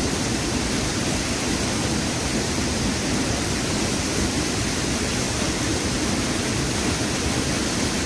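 Waterfall: water pouring down a steep rock face and splashing below, a steady, unbroken rush.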